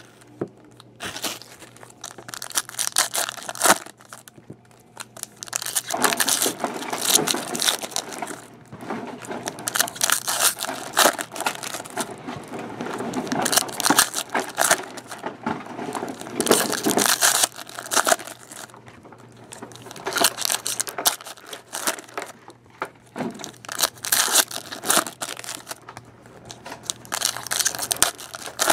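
Foil wrappers of Prizm Soccer trading-card packs being torn open and crumpled by hand, in irregular crinkly bursts with short pauses between packs.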